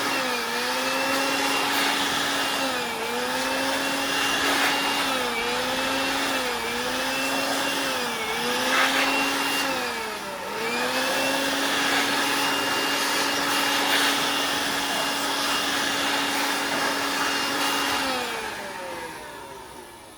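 Electric dust blower running with a steady motor hum and rushing air. Its pitch sags and recovers several times, then it is switched off about eighteen seconds in and winds down.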